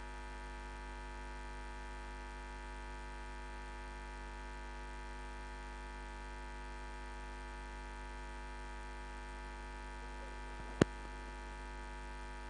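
Steady electrical mains hum in the announcer's sound system, a buzz with many evenly spaced overtones, with one sharp click near the end.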